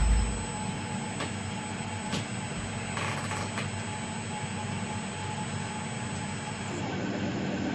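DIY CNC mill running: a steady hum with a constant high whine from its drives, and a few light clicks and a short rattle about three seconds in, as the machine works through an automatic rotary-table probing setup.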